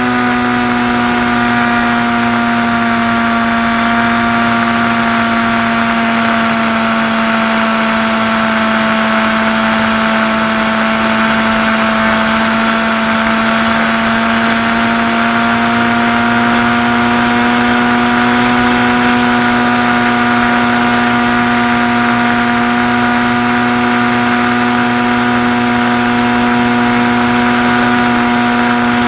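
Skywalker RC plane's motor and propeller running steadily, a humming tone whose pitch sags slightly through the middle and rises back again.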